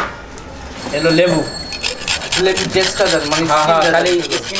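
Quick repeated scraping and rubbing strokes, with voices talking over them.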